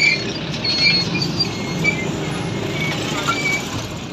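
Motorcycle engine running and road noise while riding along a street among other traffic, with a few brief high-pitched tones.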